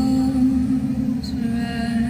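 Music: a sustained low drone with several held tones above it.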